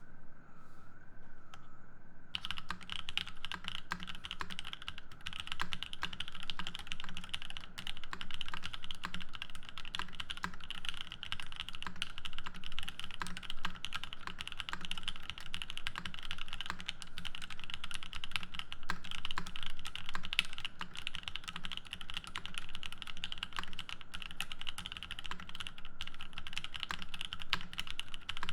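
Fast, continuous typing on a Matrix Noah mechanical keyboard with lubed Seal switches, an aluminium plate and GMK ASCII keycaps: a dense stream of key strokes that starts about two seconds in.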